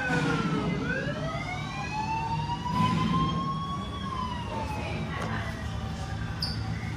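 Siren-like wailing tone: a brief falling sweep, then a slow rise over about three seconds and a slow fall. A short high chirp comes near the end.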